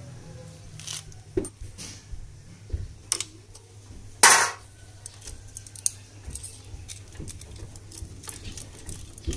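Hand tools and small metal engine parts clinking and tapping as a motorcycle engine is taken apart, with one loud metallic clank about four seconds in.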